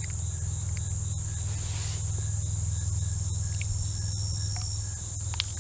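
Insects droning in a steady, high, even buzz, over a steady low rumble.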